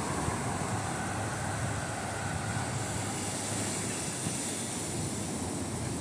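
Small waves breaking and washing up a sandy beach: a steady rushing surf noise, with a low rumble of wind on the microphone.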